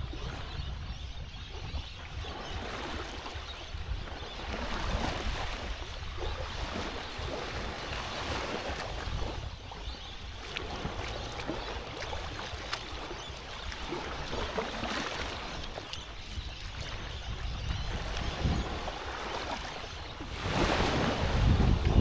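Small waves lapping and washing onto the sand at the water's edge, in slow swells every few seconds, with wind buffeting the microphone. The wind rumble grows louder near the end.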